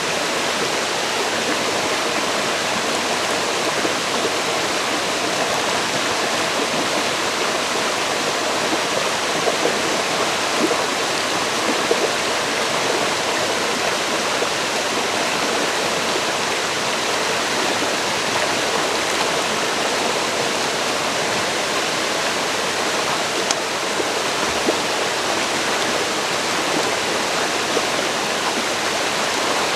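A river flowing over rocks, a steady rushing and gurgling of water.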